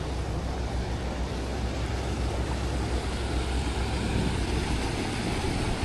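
Steady rush of a flowing gorge stream, with a low rumble underneath.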